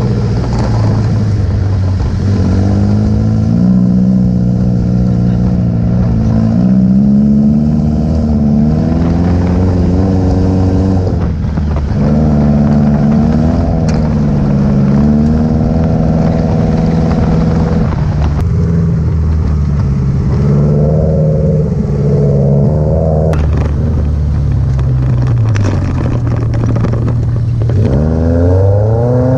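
Moca 1.8 dune buggy's engine running under load, its pitch rising and falling as the throttle is worked, with a sharp rev-up near the end.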